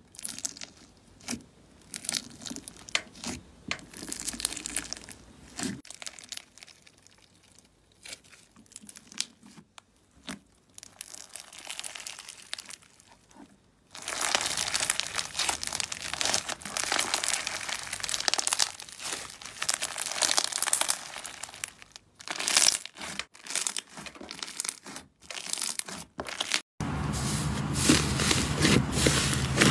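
Fingers poking, squeezing and stretching white foam-bead slime, giving sticky crackles and pops. The crackling turns dense and louder about halfway through as the slime is pulled apart. Near the end it switches to the squish of a large puffy slime being pressed, with a low steady hum behind it.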